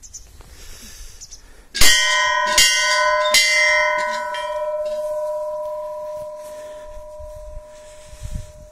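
A hanging metal temple bell struck three times in quick succession, about a second apart, then left ringing with a long, slowly fading hum.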